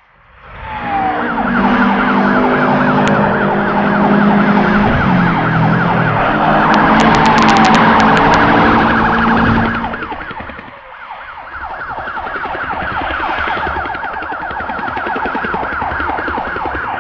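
Police car sirens in a rapid rising-and-falling yelp, with a lower steady drone beneath them for the first half. A quick run of sharp clicks comes about seven to eight seconds in.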